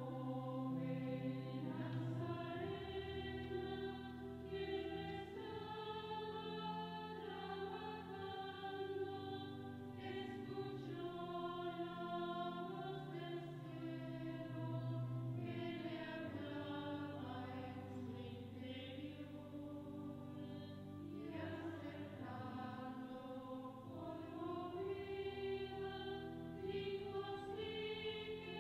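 A choir singing a slow hymn in long held notes that move in steps.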